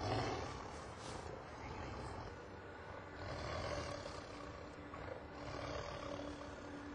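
A tiger growling and roaring in several swells, the loudest right at the start.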